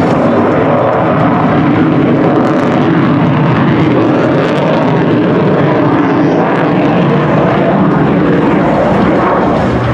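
Lockheed Martin F-35A Lightning II fighter jet pulling a hard turn overhead. Its single Pratt & Whitney F135 engine gives loud, steady jet noise that does not let up.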